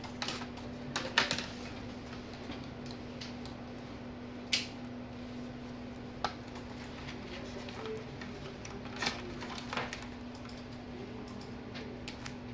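Small clicks and taps of a laptop motherboard and its connectors being handled and fitted into the plastic chassis, a few sharp clicks spread through, over a steady low hum.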